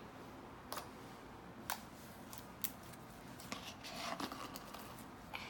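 Very soft slime squeezed and folded by hand, giving the clicking pops of air pockets bursting: a handful of sharp clicks about a second apart.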